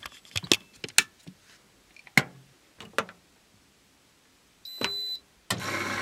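Front-loading washing machine being loaded and shut: a handful of knocks and clicks from the door, then a short high electronic beep as the start button is pressed about 4.7 s in. From about 5.5 s the machine starts its cycle with a steady hiss and low hum.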